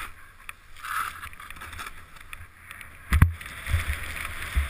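Powder snow hissing and swishing under a rider carving down a deep, ungroomed slope, heard through a helmet-mounted camera with low rumbling. A sharp, loud knock about three seconds in and a smaller one near the end.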